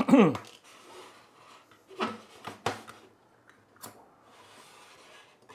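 Ring-pull tin can being opened by hand: three sharp metallic clicks as a finger works under the ring tab and levers it up, then a faint scraping as the lid starts to give.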